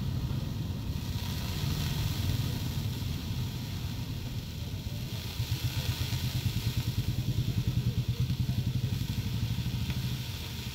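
Water sizzling into steam on a hot dosa griddle, under a steady low engine-like rumble that pulses rapidly for a few seconds in the second half.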